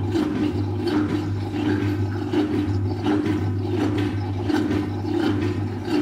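Fisher & Paykel WashSmart top-load washing machine running a spin cycle: a steady hum with a whirring tone that pulses on and off about once or twice a second, as the machine pumps out water at the start of the spin.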